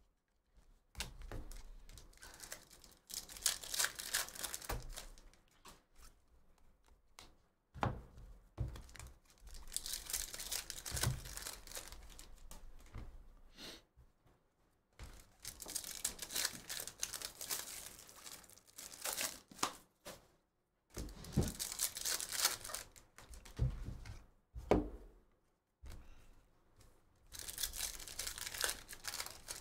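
Foil wrappers of Topps Chrome baseball card packs being torn open and crinkled, in several bursts a few seconds long with short pauses between, mixed with a few low thuds as cards and packs are handled.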